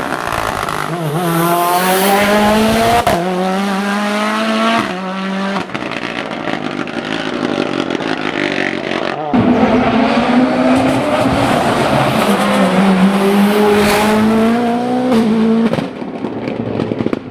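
Mitsubishi Lancer hillclimb prototype's engine at full throttle, climbing in pitch through several quick upshifts. About nine seconds in it jumps up on a downshift, and the pitch sags as the car slows. It then pulls hard again, with one more upshift near the end.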